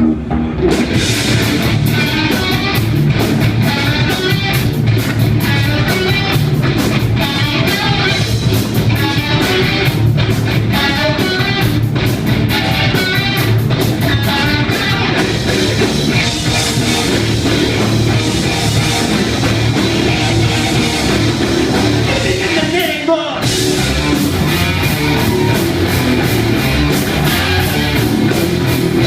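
Live rock band playing a heavy song on electric guitars and a drum kit. The music drops out for a moment about 23 seconds in, then the band comes back in.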